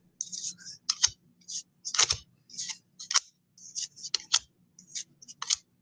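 2013 Press Pass football trading cards being flipped one after another through a pack: short papery swishes and clicks, about two or three a second at an uneven pace.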